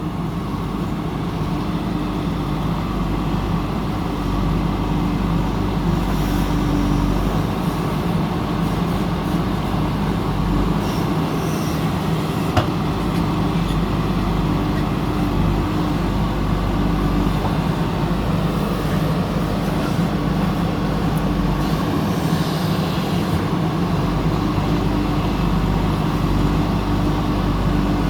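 Backhoe loader's diesel engine running steadily under work, with one sharp click about twelve seconds in.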